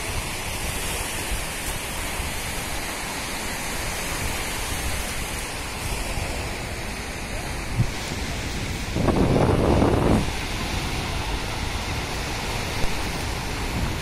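Sea waves breaking and washing up a sandy beach, a steady rushing hiss with wind on the microphone. About nine seconds in, a louder low rush lasts about a second.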